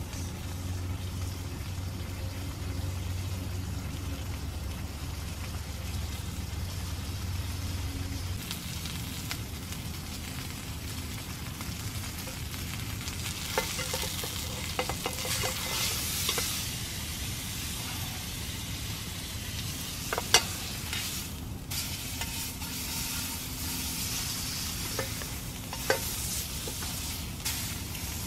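Steak sizzling and frying in a seasoned carbon steel frying pan over a campfire. A few sharp metal clicks and knocks from the tongs and pan on the grill grate come in the second half, the loudest about two-thirds through.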